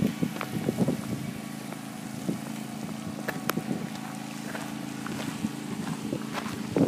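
Small vehicle engine running at a steady low hum, with wind on the microphone and a few light knocks.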